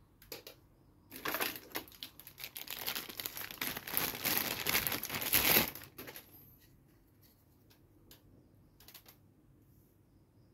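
Plastic packaging crinkling and rustling for about five seconds as a toy belt buckle is pulled out of its clear plastic tray and wrapping, followed by a few faint clicks near the end.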